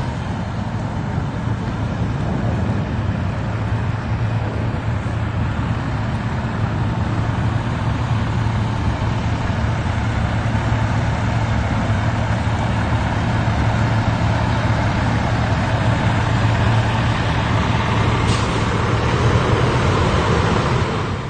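Steady low engine hum of a large vehicle running close by, under general street-traffic noise.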